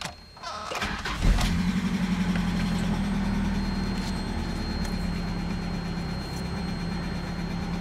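Mazda B2600 pickup's 2.6-litre four-cylinder engine is started, catching about a second in, then runs steadily at idle, heard from inside the cab.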